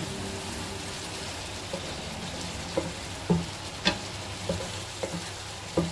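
Scrambled egg and sardine mixture sizzling in a nonstick frying pan as a spatula stirs it, with a steady frying hiss and about seven short scrapes and taps of the spatula against the pan.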